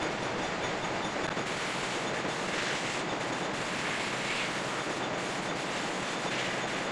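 Steady running noise of a metal lathe, with a few brief brighter swells partway through.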